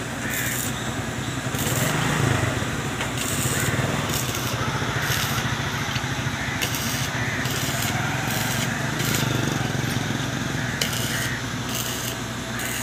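Stick welding with an inverter arc welder on chain links: the arc crackles in repeated short bursts, over a steady low hum.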